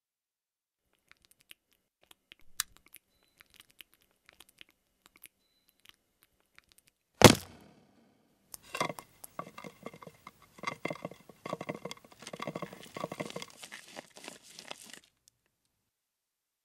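Faint scattered ticks and clicks, then one sharp crack about seven seconds in, followed by about six seconds of dense crackling and tearing.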